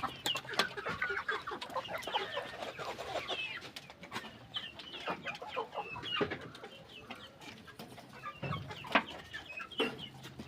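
A brood of young chicks peeping without pause, many short high chirps overlapping. There are a few sharp knocks among them, the loudest about nine seconds in.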